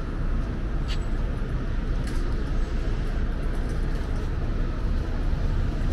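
Steady rumble of road traffic, cars and buses running along a busy city street, with a couple of short faint clicks about one and two seconds in.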